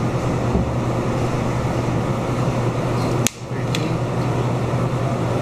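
Steady hum of room ventilation, with a sharp click a little over three seconds in and a brief dip in the noise just after it.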